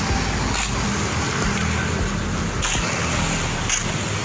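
Road traffic on a wet street, cars and motorbikes passing: a steady hiss with a low engine hum underneath.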